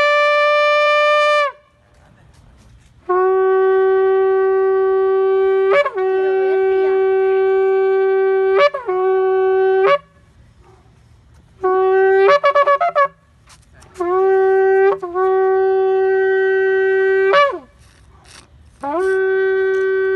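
Shofar being blown: a series of long, steady blasts with short pauses between them, each ending in a sharp upward break in pitch. About halfway through there is a brief run of quick, wavering broken notes.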